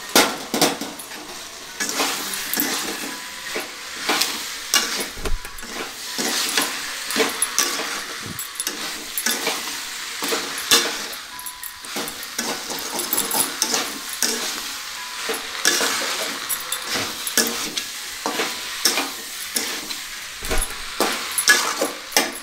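Metal ladle stirring and scraping fried cauliflower through sauce in an aluminium kadai, with frequent clinks and knocks against the pan over a steady sizzle of frying.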